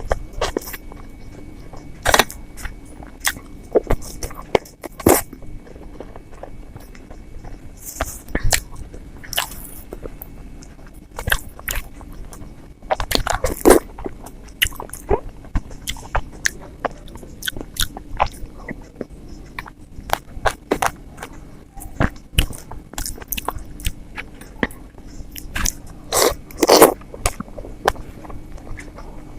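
Close-miked eating sounds of idli with sambar and chutney: irregular wet chewing and mouth smacks, with a few louder slurping or squelching bites.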